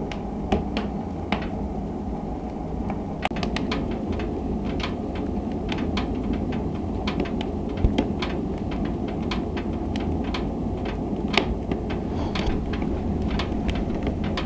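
Wood fire burning in a cast-iron woodstove, crackling with irregular sharp pops over a steady low rumble. The loudest pops come about eight seconds in and again near eleven and a half seconds.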